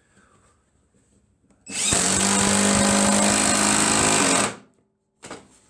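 Cordless impact driver with a socket adapter driving a hex-head lag bolt, its impact mechanism hammering steadily for about three seconds. It starts nearly two seconds in and stops abruptly.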